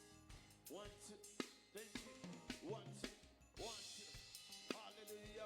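Quiet drum kit played in loose, irregular hits of snare, kick and hi-hat, with a cymbal crash ringing about three and a half seconds in. Short rising pitched slides sound between the hits.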